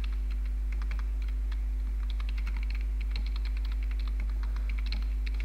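Computer keyboard typing: quick, irregular runs of keystrokes as a short line of text is entered. A steady low electrical hum runs underneath.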